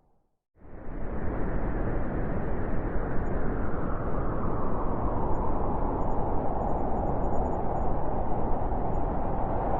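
Steady blizzard wind, a dense low rush of noise. It comes back in from a brief silence within the first second, like a loop restarting, then holds even.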